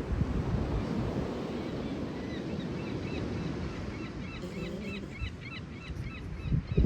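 Ocean surf washing on the shore, with wind buffeting the microphone; the surge is strongest just after the start. From about four seconds in, a rapid run of short high chirps sounds over the surf.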